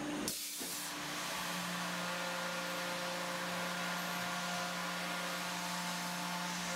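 Tormach PCNC mill's spindle running steadily with a small end mill cutting an aluminium part, giving a few steady whining tones over an even hiss from the nozzle blowing at the cutter.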